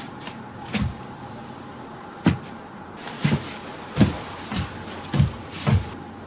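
A man's footsteps walking at a slow, uneven pace, about seven heavy steps, each a dull thud on a hard surface.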